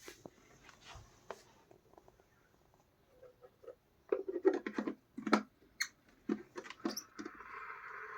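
Irregular clicks and knocks as the electric kettle is handled. Near the end, a steady hiss starts to rise as the kettle begins heating water.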